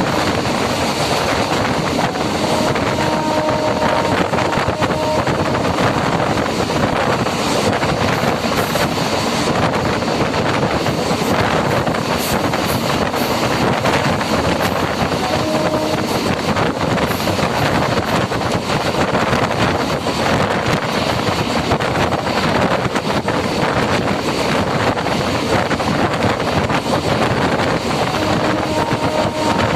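Steady running noise of an electric MEMU passenger train, a dense rushing rattle. A faint humming tone comes and goes a few times.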